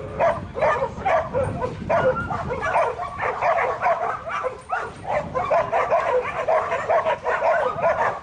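Dogs barking and yipping in quick succession, several short, high calls a second without a break.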